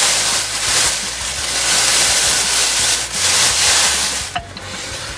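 Clear plastic wrapping rustling and crinkling loudly as it is pulled off a spoked e-bike hub-motor wheel; it stops about four seconds in.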